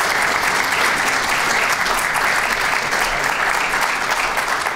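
Audience applauding steadily with dense clapping.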